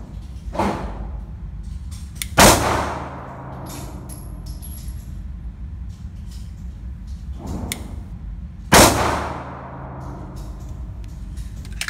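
Two 9mm pistol shots from a Glock 43X, about six seconds apart, each ringing out with a long echo in the indoor range. Two fainter bangs come shortly before each, over a steady low hum.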